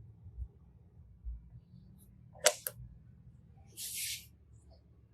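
Quiet slime-play handling sounds: a sharp double click about halfway through, then a short hissy crackle nearer the end.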